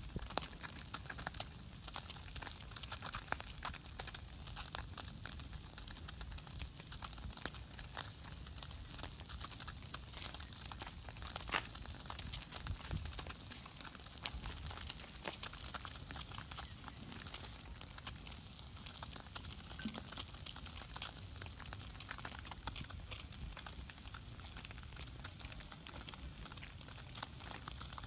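Small wood fire crackling under fish roasting on sticks: irregular soft pops and clicks over a steady low hiss.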